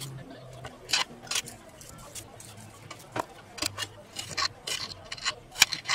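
Kitchen knife cutting an onion on a glass cutting board: about ten sharp, irregular clicks as the blade strikes the board.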